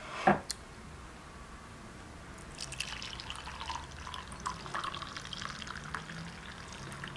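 Milky spiced tea poured from a kettle into a porcelain cup, splashing and bubbling as the cup fills, starting about two and a half seconds in. A single sharp click shortly after the start is the loudest sound.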